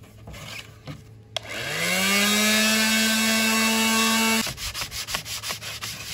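Small electric sander switched on with a click, its motor whine rising as it spins up and then running steadily before stopping abruptly. Then a sanding block scrubbed by hand over a 3D-printed plastic body panel in quick rhythmic strokes, about four a second.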